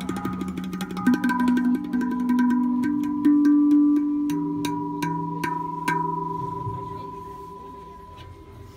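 ILdrum Big Saturn steel tongue drum in the Integral scale, played with the fingers: a quick run of taps on its tongues, then the last notes ring on and fade away.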